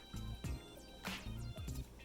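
Quiet background music with a steady beat, a low bass line under a soft hit about once a second.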